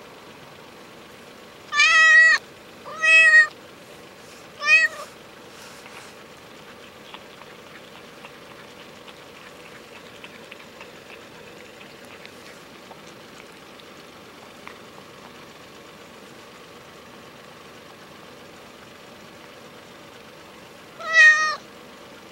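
Hungry stray ginger cat meowing: three short meows close together near the start, and one more near the end.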